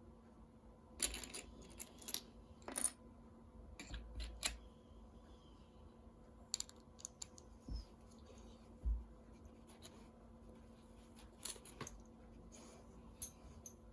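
Plastic Lego pieces clicking and clattering as they are handled and sorted, in scattered short bursts, the loudest about a second or two in.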